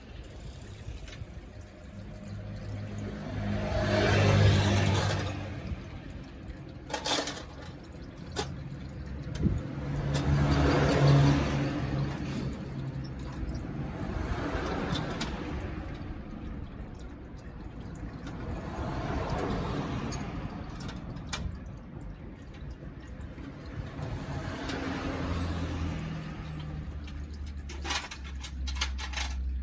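Engine oil draining and dripping into a drain pan, with the noise of vehicles passing by swelling and fading several times.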